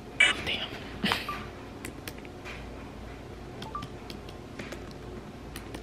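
Faint, irregular clicks of fingernails tapping a smartphone's touchscreen, with a brief rustle about a second in.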